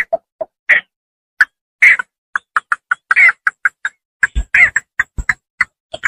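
Cinnamon bittern calls used as a lure: short clucking notes in quick, uneven runs, with a pause of about a second near the start. Two brief low thuds come in the second half.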